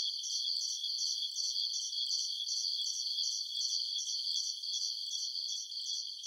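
Steady high-pitched chirping, pulsing about four times a second, insect-like, with nothing low underneath.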